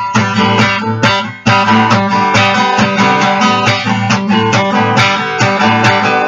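Guitar strumming chords in a steady rhythm, with a brief break about a second in.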